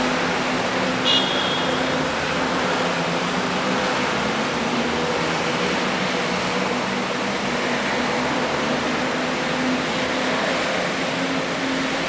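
Steady hiss of rain in a city street under a continuous low hum, with one short high-pitched squeak about a second in.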